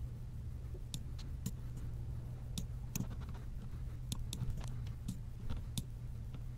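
Computer mouse clicking at irregular intervals, a dozen or so short sharp clicks, as points are placed in a CAD sketch, over a steady low hum.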